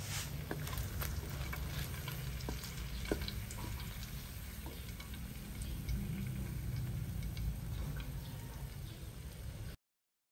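Tocino (sweet cured pork) frying in oil in a wok: a steady sizzle with scattered pops and clicks as metal tongs turn the slices. It cuts off suddenly near the end.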